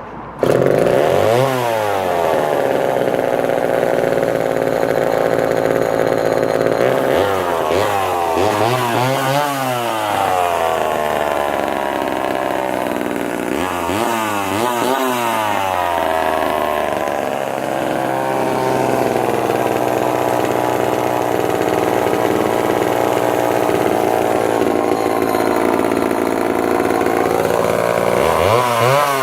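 Homelite Super XL two-stroke chainsaw catching about half a second in and running loud, its revs rising and falling about four times rather than settling to a steady idle. The idle is fast and slow to settle, which the owner thinks may be a carburettor or fuel pickup issue.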